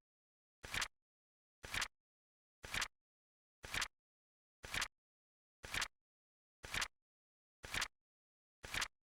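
Flip-clock sound effect: a short two-part flip click repeating once a second, nine alike in a row, with silence between.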